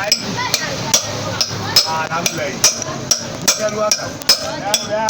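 Hammer blows on metal, about two a second, each a sharp strike with a brief metallic ring, as work is done on a motorcycle wheel hub's key.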